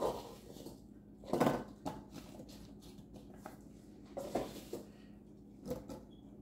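Handfuls of peeled apple slices taken from a wire mesh strainer in a stainless steel bowl and set into a glass baking dish: about five short clattering, rustling handfuls, the loudest about a second and a half in.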